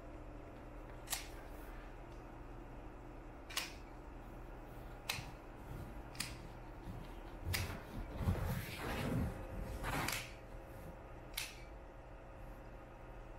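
Pet nail clipper snipping a cat's claws: six sharp single clicks, one every one to two seconds. About eight seconds in, a couple of seconds of rustling handling.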